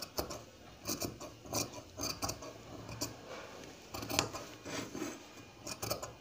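Large tailor's shears snipping through lining fabric in short, uneven cuts, about one or two a second, the blades closing with a crisp crunch while working round the curve of a bodice armhole.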